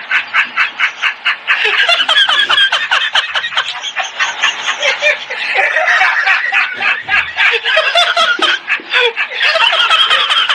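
High-pitched laughter in rapid pulses, about six a second at first, then a denser, unbroken run of laughing that stops just after the end.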